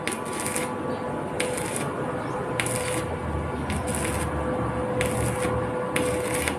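Stick (arc) welding on a metal railing post: the electrode's arc crackling and sizzling continuously, with short hissy flares every second or so and a steady hum underneath.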